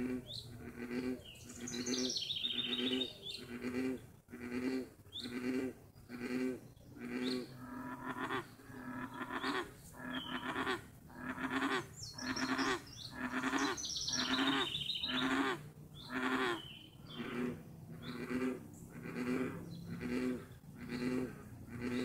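American bullfrogs croaking: a long run of low, deep notes, a bit more than one a second, with birds calling faintly higher up.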